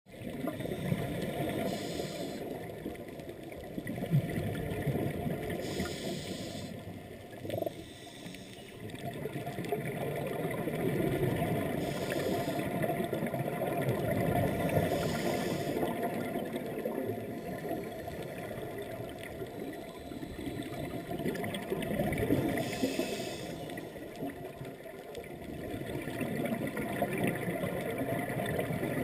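Underwater ambience on a scuba dive: a steady low rumble of water, with about five rushes of exhaled bubbles from a diver's regulator a few seconds apart.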